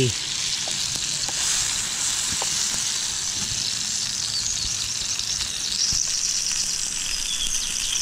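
Cherry tomatoes sizzling steadily in oil in a small frying pan over a hexi (hexamine) stove, with a few faint ticks from a knife turning them in the pan.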